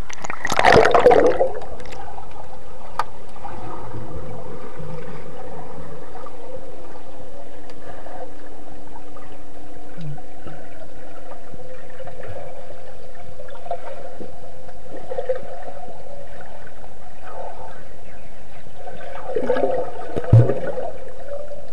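Muffled underwater sound from an action camera submerged in a swimming pool: a rush of water as it goes under about a second in, then a steady hum with faint gurgles, and a burst of bubbling and splashing near the end as a swimmer passes close by.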